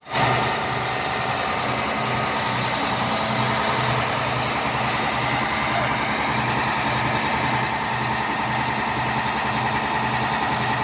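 Drilling rig's engine running steadily, with a low throb about twice a second.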